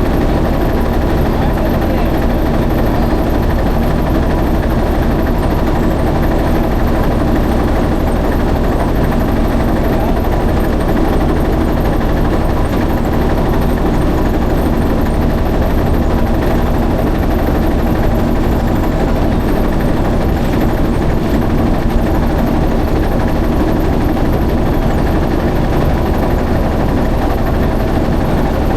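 Motorboat engine running steadily, an even drone that holds the same pitch and level throughout.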